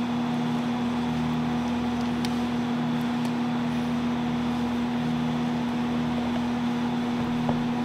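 Steady machine hum in the room, one held tone over a duller drone, with a few faint clicks of fingers working at a cardboard box.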